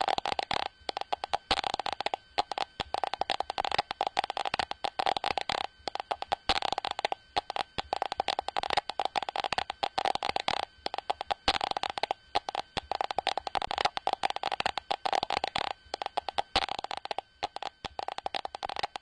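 Software-simulated Geiger counter clicking rapidly and irregularly as it counts radiation from a virtual beta source: a dense, uneven crackle of clicks with short gaps, running throughout.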